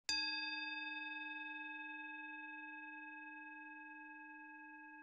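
A singing bowl struck once, ringing with a low tone and several higher overtones and fading slowly.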